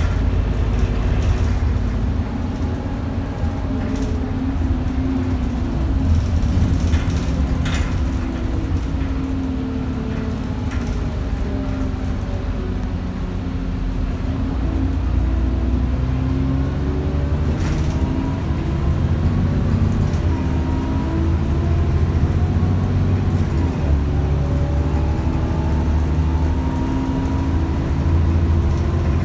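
ADL Enviro 400 double-decker bus with a ZF automatic gearbox driving, heard from on board: the engine drone falls and rises in pitch as the bus slows, pulls away and changes gear, with a few knocks from the body and a faint high whine in the second half.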